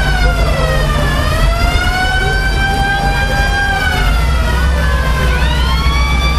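A siren-like wailing tone, its pitch sliding down, back up and down again before holding steady near the end, over the steady low rumble of idling WWII jeep engines.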